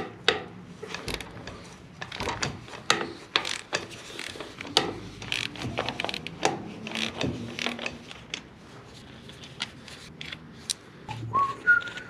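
Ratchet wrench clicking and metal clinking as the nuts holding the rocker arm assembly are backed off an International 484's D-179 diesel cylinder head. Near the end comes a brief whistle-like tone that steps up in pitch.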